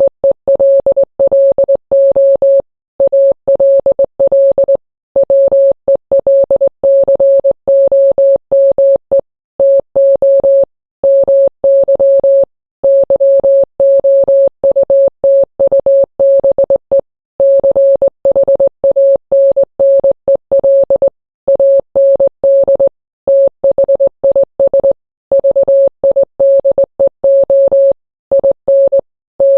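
Morse code sent as a single steady beep tone, keyed on and off in quick dots and dashes with short silent gaps between letters and words.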